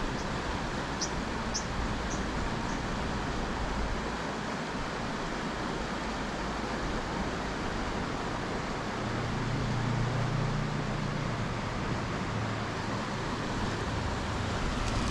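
Mountain stream water rushing steadily over rocks, with a low hum swelling briefly a little past the middle.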